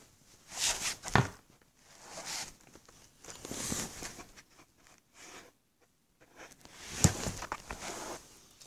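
Rustling and handling noises, with a sharp knock about a second in and another near the end, and a short near-silent stretch in between.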